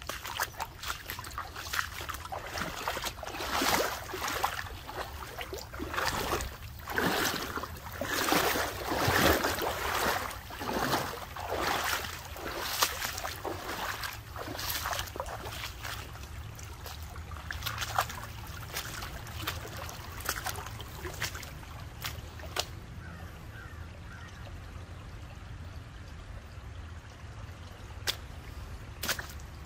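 Creek water sloshing and splashing in uneven surges about once a second, as of feet wading through the shallows, over a steady trickle. The splashing dies down about halfway through, leaving the trickle and a few sharp clicks.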